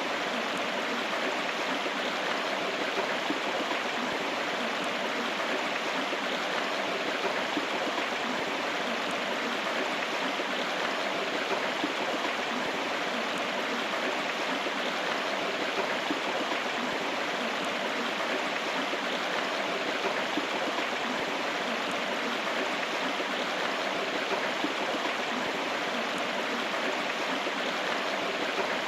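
A river running: steady rushing and gurgling of flowing water, without let-up.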